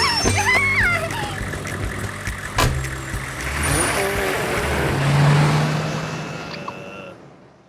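Motor vehicle sound effect: a rushing engine noise that builds to a peak about five seconds in, then fades away to silence.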